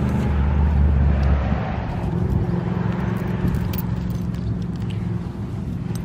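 Steady low hum of a motor vehicle engine running, with a deeper rumble that drops away about a second and a half in.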